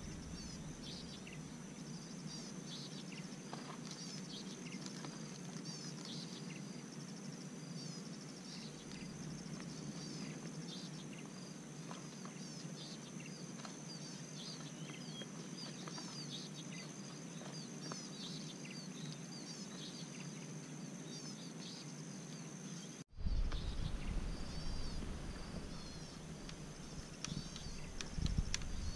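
Rural outdoor ambience: a steady high-pitched insect drone with many short bird chirps scattered throughout. Near the end, after a brief cut, a low rumble comes in under them.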